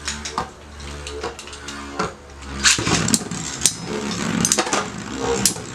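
Metal Fight Beyblade spinning tops, Lightning L-Drago and Aquario, whirring in a plastic stadium with a steady hum, and sharp clacks as they strike each other and the stadium wall, the loudest a little under three seconds in.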